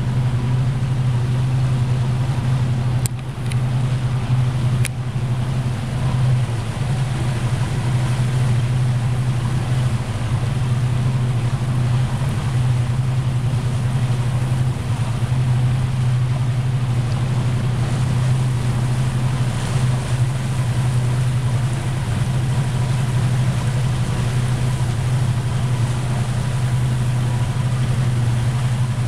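Motorboat engine running steadily, a deep even hum, over a hiss of wind and water.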